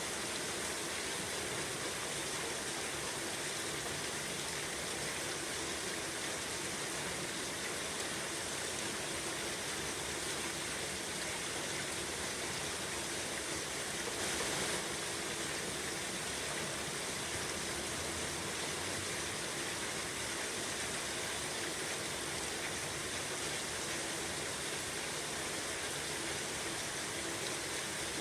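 Steady rain falling, an even unbroken hiss, with a brief slight swell in level about halfway through.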